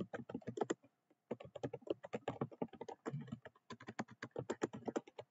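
Typing on a computer keyboard: a fast, uneven run of key clicks, with a brief pause about a second in.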